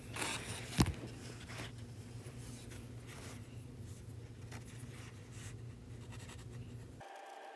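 Mechanical pencil drawing on sketchbook paper in short strokes. A single sharp knock just under a second in is the loudest sound, with handling rustle around it.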